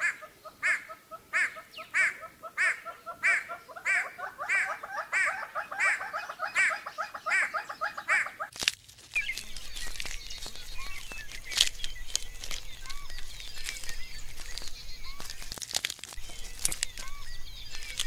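Great hornbills calling: a repeated call, each rising in pitch, about three every two seconds, which breaks off about halfway through. After that, porcupines chew their food with scattered sharp crunching clicks and a few faint chirps.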